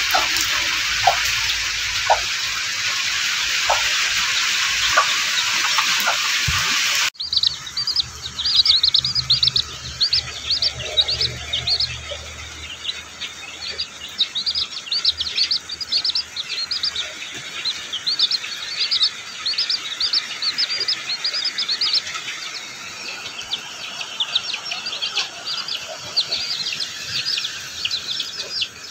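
Steady rain hiss for about the first seven seconds. It cuts off suddenly, and from then on young domestic chicks peep continuously in rapid, short, high chirps.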